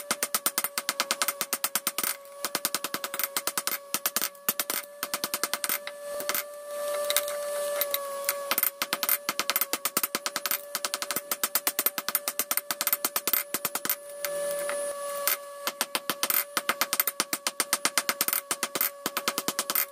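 Hand hammer striking a red-hot steel knife blade on an anvil in fast runs of blows, several a second, with short pauses between runs. The anvil rings steadily under the strikes.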